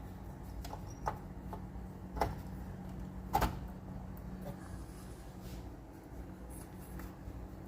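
Handling noise at a Jackson 103 tube tester: scattered light clicks and knocks, two of them louder, over a steady low electrical hum.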